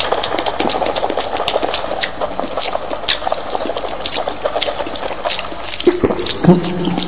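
Close-up sounds of mouths eating: many wet clicks and smacks, several a second, over a continuous wet squelching.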